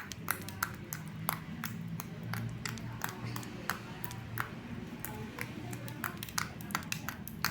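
Slime being squeezed and worked by hand, giving a string of sharp, irregular clicks and pops, about three or four a second, over faint background music.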